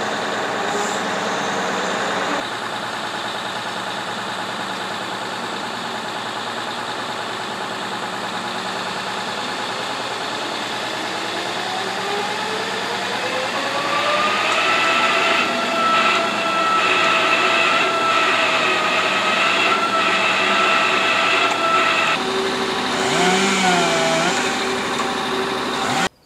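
Heavy diesel forestry machinery running steadily; partway through, its pitch rises smoothly over a few seconds and then holds at the higher speed, and the sound shifts abruptly twice.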